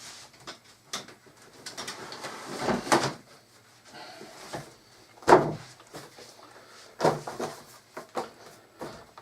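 Cookery books being set down on a board as weight, a few dull thumps and knocks with rustling handling between them, the loudest about five seconds in.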